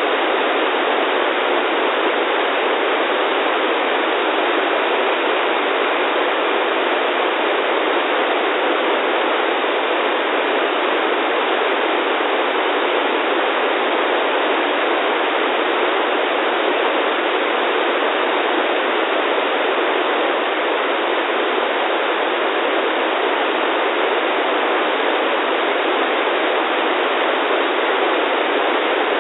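Steady hiss of static from an RTL-SDR receiver's FM demodulator, tuned to NOAA 15's weather-satellite downlink. The satellite's signal is weak, and no image tone stands out from the even hiss.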